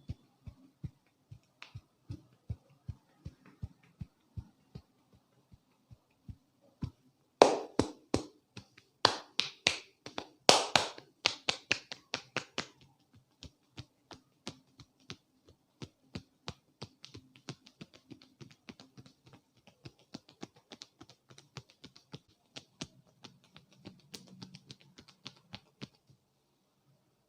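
Rhythmic percussive hand taps of a head massage, about three light strikes a second. About seven seconds in comes a louder, faster flurry of slaps lasting some five seconds, then the light tapping resumes and stops shortly before the end.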